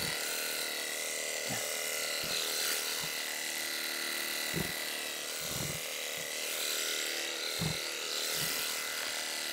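Electric sheep-shearing handpiece running steadily as it cuts through a Texel ram's fleece, a steady high hum with several soft low thumps scattered through it.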